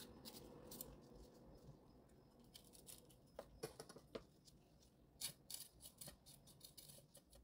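Faint, scattered taps and scrapes of a kitchen knife on a wooden cutting board as a red chili pepper is slit open lengthwise and seeded, with a small cluster of taps about five seconds in.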